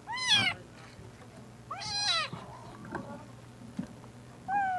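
A domestic cat meowing three times, each meow a rising-then-falling cry about half a second long.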